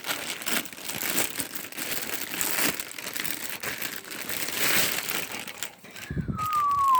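Package wrapping crinkling and rustling as a mailed package is opened by hand, in irregular handling noises. Near the end comes a short low rumble and a single brief falling high tone.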